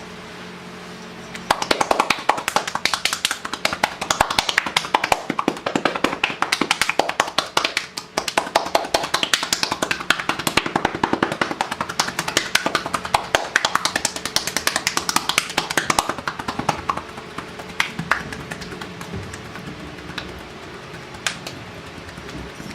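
Rapid percussive massage strokes: hands slapping and tapping on the body in quick succession. They start about a second and a half in, run thick for some fifteen seconds, then thin out to scattered taps.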